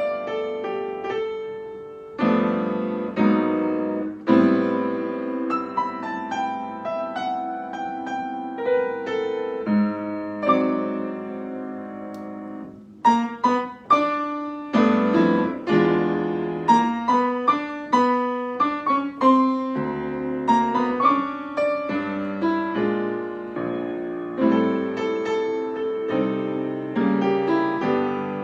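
Piano playing chords and melody at a slow pace, with a short lull about twelve seconds in before louder chords are struck.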